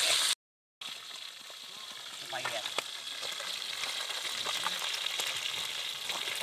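Whole fish deep-frying in hot oil in an aluminium wok: a steady sizzle with fine crackles and spits. The sound cuts out for a moment about half a second in.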